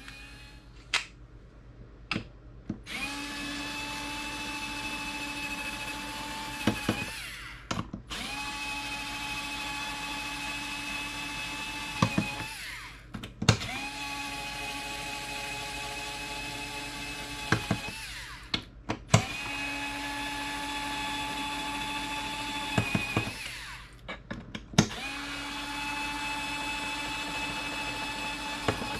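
Small cordless electric screwdriver backing out screws, its motor whining steadily in five runs of about four seconds each, each run spinning up and winding down. Clicks and taps of the bit and the screws come between the runs.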